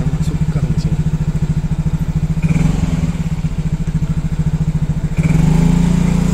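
Small motorcycle engine running at low speed with a fast, even low pulsing. It gets louder and smoother about five seconds in.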